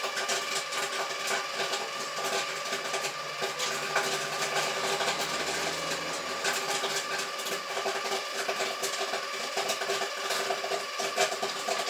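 Kettle-style popcorn machine popping a batch: dense, irregular pops of kernels bursting in the heated kettle over the steady hum of the stirrer motor.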